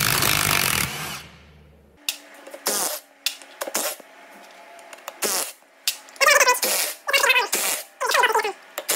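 Cordless Milwaukee Fuel stubby impact wrench backing out the small cover bolts of an NV241 transfer case. One longer burst about a second long comes at the start, then a string of short trigger pulls, the motor's whine rising and falling with each.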